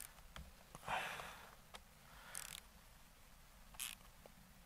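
Faint small clicks of a Torx-bit driver turning scope-mount screws on a air-rifle rail, tightened a little at a time, with a few short soft breaths in between.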